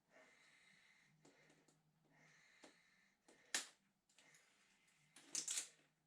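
Small scissors and handling of heat-shrink tubing on a wiring harness, faint over a low hum: one sharp snip about halfway through and a short cluster of clicks and rustling near the end.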